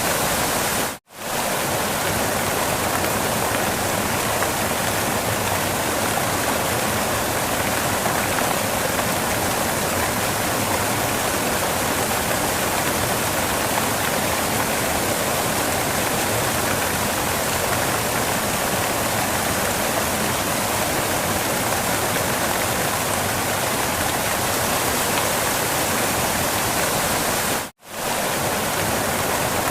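Steady rushing of a waterfall, with two brief dips to silence, about a second in and near the end.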